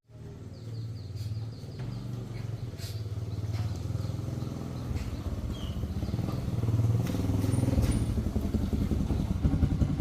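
Motorcycle engine running, growing steadily louder as it draws closer.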